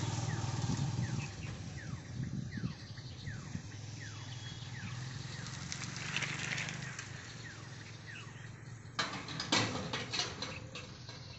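Level-crossing boom barrier being lowered, with a low engine hum fading early on and a run of short falling squeaks or chirps about every half second. Near the end comes a cluster of sharp clicks and knocks as the barrier comes down to rest.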